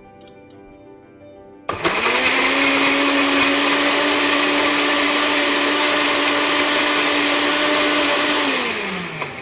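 Countertop blender switched on about two seconds in, running at a steady pitch as it purées frozen berries into a smoothie, then switched off near the end, its motor winding down with a falling pitch.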